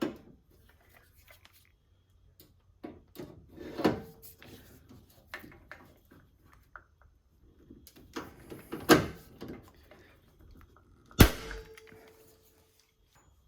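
Hand-held manual pop rivet gun being squeezed to set 3/16 inch rivets into the hood latch: a string of clicks and metal knocks, with heavier clunks about 4 and 9 seconds in. About 11 seconds in comes the loudest sound, a sharp snap with a brief ring, typical of the rivet's mandrel breaking off as the rivet sets.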